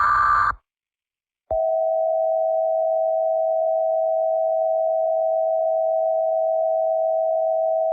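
Emergency Alert System signal: the last of the screechy digital header bursts ends about half a second in. After a second of silence, the steady two-tone attention signal starts and holds.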